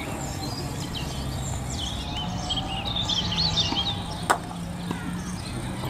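Birds chirping and singing over a steady low background hum. About four seconds in comes a single sharp click, the loudest sound here.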